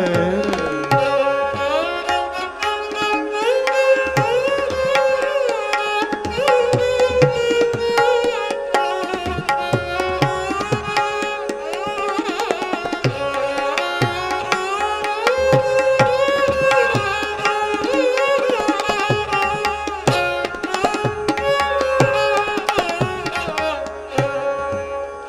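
Instrumental passage: a bowed fretted string instrument plays a gliding melody over tabla, whose sharp strokes and deep bass-drum thuds keep a steady rhythm.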